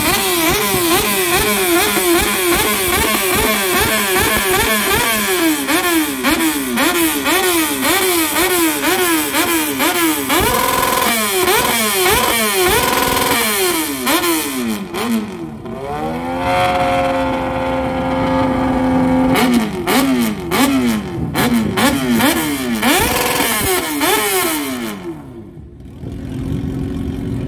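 Motorcycle engine revved over and over in quick throttle blips, about two a second. A couple of times the revs are held high for about half a second, and once they are held steady for a few seconds. The revving eases off near the end.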